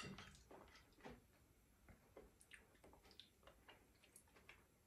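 Near silence with faint, scattered small clicks and wet mouth sounds of someone tasting a forkful of food, a slightly louder click right at the start and another about a second in.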